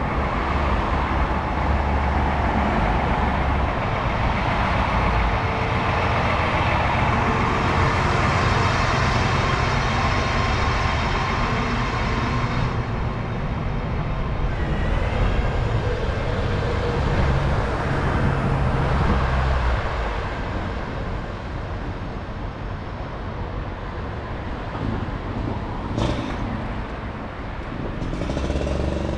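Road traffic on a busy street: a heavy diesel engine runs steadily with cars passing, and the low engine hum eases off about two-thirds of the way through.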